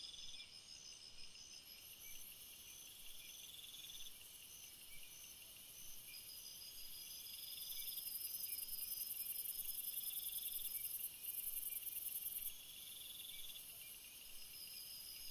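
Night insect chorus sound effect: many insects chirping and trilling at once, in high-pitched overlapping pulses that repeat steadily, a little louder in the middle.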